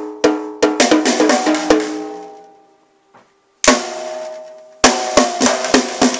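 Toddler banging on a small junior drum kit with sticks: a quick, uneven run of strikes on the toms and snare, the drum heads ringing with clear pitched tones. The playing stops for about a second and a half partway through, then comes back with one loud ringing hit and a steady run of strikes about three a second.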